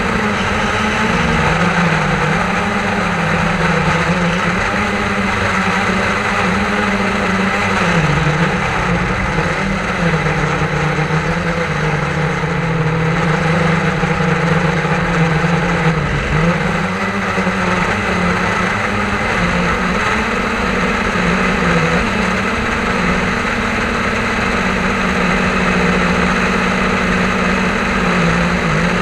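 Quadcopter drone's electric motors and propellers running in flight, a steady loud buzzing hum whose pitch wavers slightly up and down as the motors adjust thrust.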